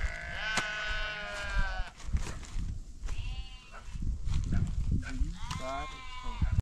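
Sheep bleating three times: a long quavering call of about two seconds, a short one about three seconds in, and another near the end. Low rustling and a few sharp clicks sound between the calls.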